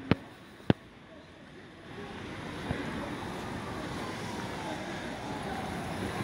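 Street ambience: a steady wash of distant traffic with some wind on the microphone, after two sharp clicks in the first second.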